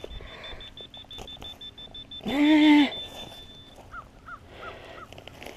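A handheld metal-detecting pinpointer beeping rapidly on one high pitch, stopping a little before four seconds in. Midway through, a crow gives one loud caw, and near the end a small bird chirps four times.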